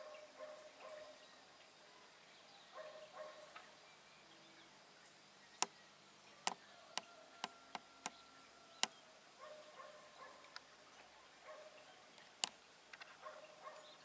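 Quiet countryside ambience with faint, distant animal calls in short clusters, heard several times. Several sharp, loud clicks come in the middle and once more near the end.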